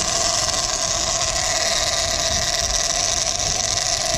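Sport-fishing boat's engine running steadily, a constant drone under an even hiss.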